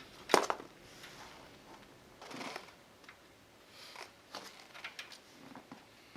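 Cables and small plastic connectors being handled: a sharp click about half a second in, a soft rustle, then a few light clicks.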